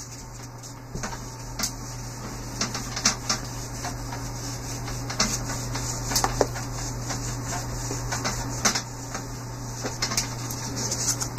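Handheld whiteboard eraser wiping and rubbing across a whiteboard, with many short scattered scrapes and taps as it is pressed and moved over the board. A steady low hum runs underneath.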